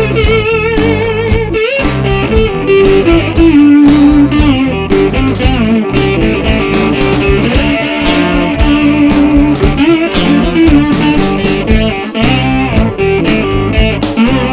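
Electric guitar playing a rockabilly solo, with bent notes and wobbling vibrato, over a band backing of low bass notes and a steady beat.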